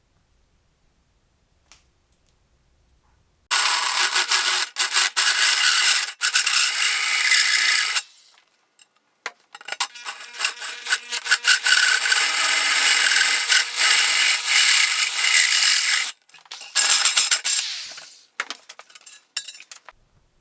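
Loud rasping, scraping noise of a tool working on material, in three long stretches of several seconds that start and stop abruptly.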